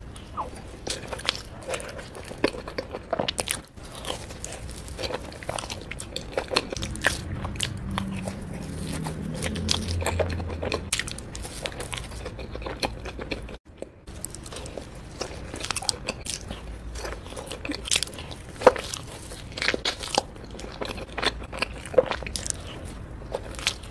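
Close-miked eating: a person biting into and chewing soft, sugar-dusted filled doughnuts, with many short, sharp mouth clicks and smacks.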